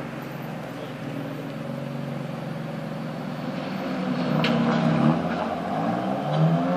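BMW M4's twin-turbo inline-six running with its exhaust flaps fully open, a steady engine note that grows louder from about four seconds in, with a short sharp pop at about four and a half seconds.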